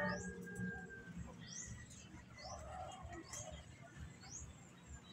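A bird's short high chirps, repeated about once a second. The tail of background music cuts off just as they begin.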